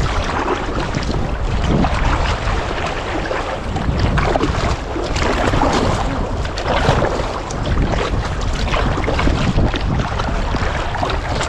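Wind buffeting a bow-mounted action camera's microphone over choppy sea, with water splashing and slapping irregularly against a sea kayak's hull.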